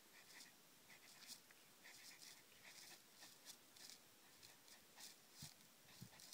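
Dog sniffing hard with its nose in a dry shrub: faint, quick snuffles about twice a second, with a couple of low thumps near the end.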